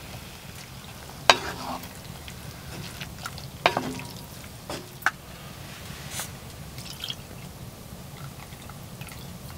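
Tinned chopped tomatoes poured into a cast-iron pot of softened onions and peppers, then stirred with a wooden spatula. A few sharp knocks against the pot, the loudest about a second in and again near four seconds, with softer stirring sounds between.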